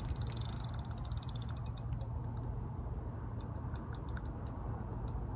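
Fishing reel clicking while a hooked carp is played: a fast run of sharp clicks for about the first second, then slower, scattered clicks, over a steady low hum.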